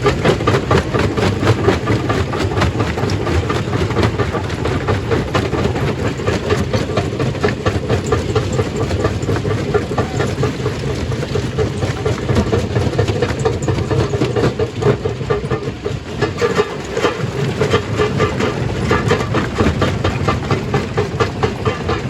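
Stone crusher running, with a dense, unbroken clatter of rock being broken up over a steady low mechanical rumble.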